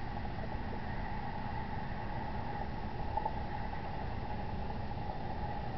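Steady background hiss and hum of a night-time outdoor scene picked up by a security camera's microphone, with one brief faint tick about three seconds in.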